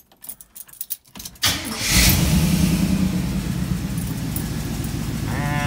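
Key clicks in the ignition, then a 305 small-block Chevy V8 cranks and fires about a second and a half in and settles into a steady idle. It is still not running right: two spark plug wires, cylinders 5 and 6, are on the wrong plugs, out of firing order.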